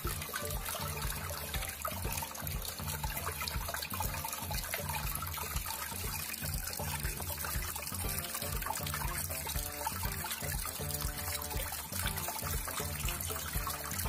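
Water trickling and splashing steadily as a small indoor tabletop waterfall fountain runs, its streams falling from the cement tiers into the basin.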